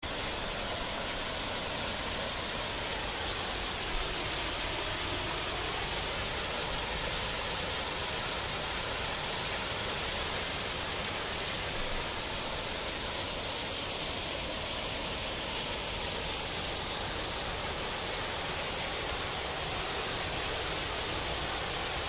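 Steady rush of a river spilling over a small weir and running over rocks.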